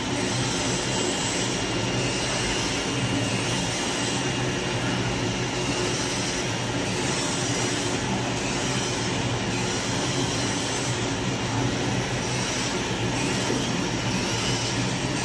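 CNC digital leather cutting machine running, its gantry and oscillating-knife head at work: a steady mechanical drone and hum with a hiss that swells gently about once a second.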